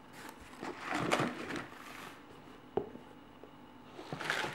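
Handling noise as a sneaker is taken out of its cardboard shoebox: paper and cardboard rustling for about a second, a single light knock a little after the middle, and a short rustle near the end.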